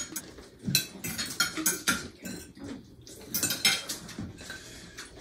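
Cutlery clinking and scraping on dinner plates during a meal, in short irregular clicks, with a louder cluster about three and a half seconds in.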